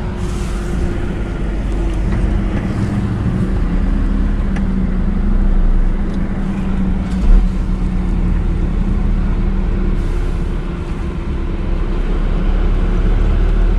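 Semi-truck's diesel engine running at low speed, heard from inside the cab as a steady low hum with rumble while the lorry creeps along. One short, loud thump about seven seconds in.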